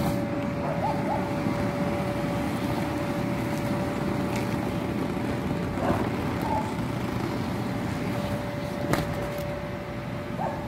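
Electric inflatable blower running steadily, a constant whine over a rush of air as it keeps a bounce house inflated. A few faint clicks partway through.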